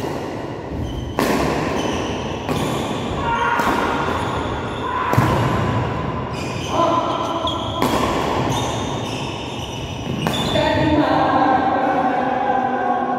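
Badminton rally: rackets striking the shuttlecock with sharp cracks every one to two seconds, echoing around a large hall, mixed with footwork on the court.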